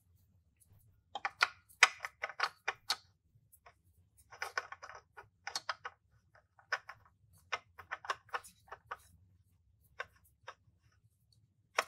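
Irregular clicks and light taps of a spin-on oil filter being threaded by hand onto a Yamaha F225 outboard's filter mount, coming in short clusters with pauses between.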